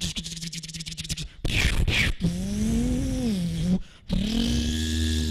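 A mimicry artist's voice through a microphone imitating a battle scene from a war film: a fast rattle, a short blast, then a humming drone that rises and falls, and a steadier hum with a deep rumble near the end.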